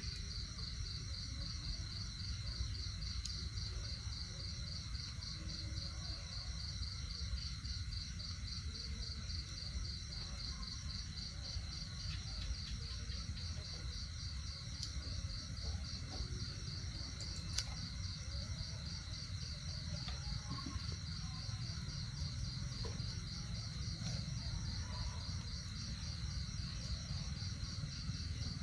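Insects trilling steadily: a continuous high, rapidly pulsing buzz, over a low steady rumble.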